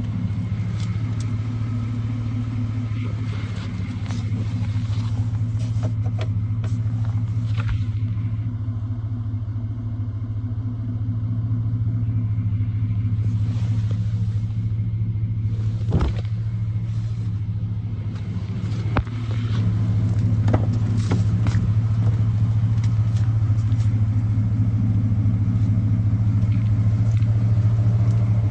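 2003 Chevrolet Avalanche's 5.3-litre V8 idling with a steady low hum, its pitch unchanging. Two sharp knocks sound partway through, a few seconds apart.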